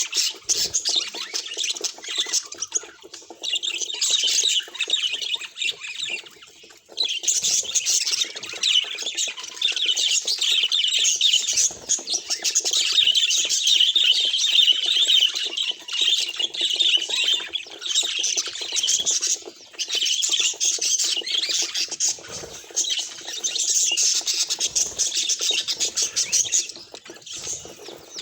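Budgerigars chattering and warbling, a dense, continuous stream of rapid high chirps and squawks, with a brief lull about seven seconds in.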